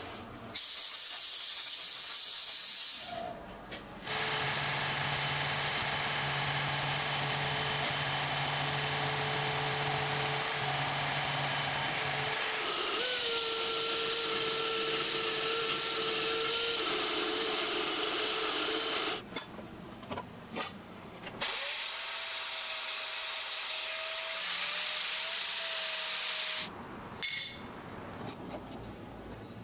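Belt grinder running with a steel plate held against its abrasive belt: a loud grinding noise over a steady motor tone, in three stretches with short pauses between. Near the end, a few light scratches as a scribe marks the steel.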